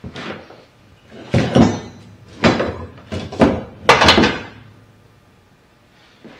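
A string of irregular clunks and knocks as old steel front-suspension parts are moved about and set down during a search through a parts pile, about five loud ones between about one and four and a half seconds in.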